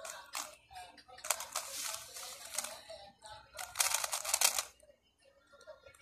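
Gan 354M speedcube being turned fast by hand: rapid clicking and clacking of plastic layer turns, loudest about four seconds in, then much fainter near the end.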